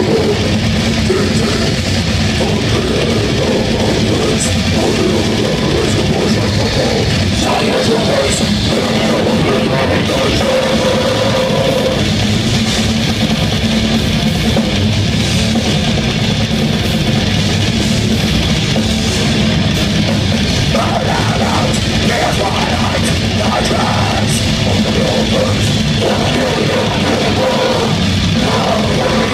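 Death metal band playing live at full volume: electric guitars, bass and a drum kit in a dense, unbroken wall of sound.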